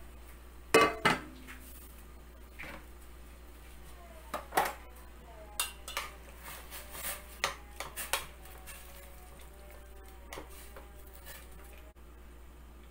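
Kitchen utensils and cookware clinking and knocking against a pot in a series of irregular, sharp strikes, the loudest two about a second in.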